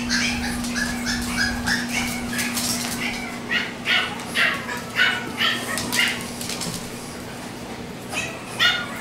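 Boston terrier puppy yipping and whimpering, a string of short high cries repeated every half second or so, thinning out briefly before picking up again near the end.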